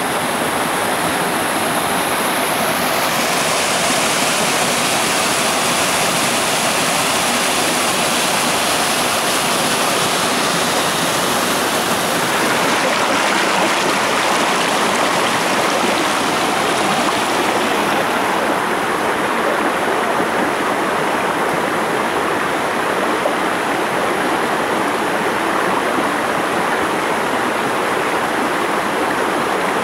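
Mountain stream water cascading over rocks: a steady, even rush.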